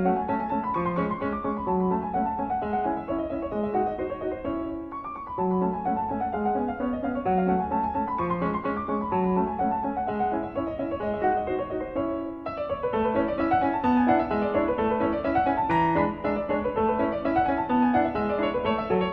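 Solo piano music: a steady flow of notes in rising and falling runs.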